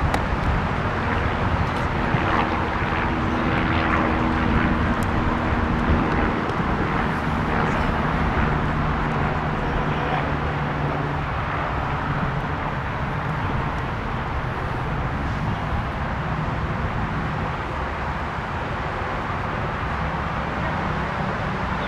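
A steady engine drone over a constant rushing noise. Its pitch drops lower about a third of the way through, and it fades somewhat in the second half.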